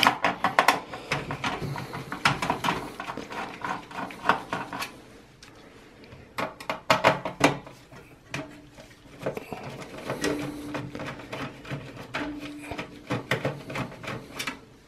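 Screwdriver turning out the fan screws in the steel chassis of a Dell Precision Tower 5810 workstation, with a run of clicks, scrapes and rattles. In the second half a steady low tone comes in three stretches.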